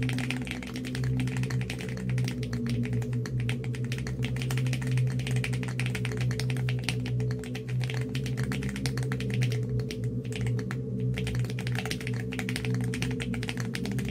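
Rapid, continuous typing clicks: a typing sound effect that goes with text being typed out on screen. Underneath runs a low, steady drone.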